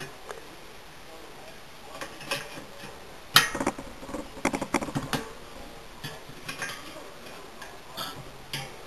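Light metallic clicks and ticks from a spoke wrench turning a spoke nipple on a bicycle wheel and knocking against the spokes, as a spoke is tightened while truing the wheel. The clicks come irregularly, loudest about three and a half seconds in, with a run of them a second later.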